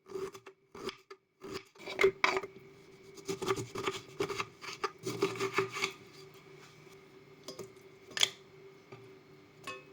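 Ginger root being worked by hand with irregular rasping, scraping strokes, busiest in the first six seconds. A single sharp knock comes about eight seconds in.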